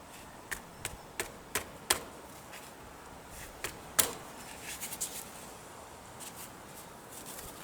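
Sharp clicks and knocks from hand tools and the drive chain of a Yamaha XS650 motorcycle as the chain is being taken off. About five quick clicks come in the first two seconds, then a louder knock about four seconds in and a few lighter clicks after it.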